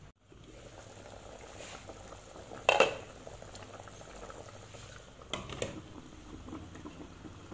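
Chicken broth bubbling at a boil in an aluminium pot, with a loud metal clank about three seconds in and a few softer knocks a little past five seconds.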